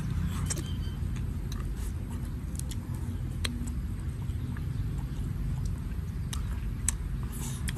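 Steady low rumble, with scattered short clicks and crackles as lettuce leaves are torn and food is chewed.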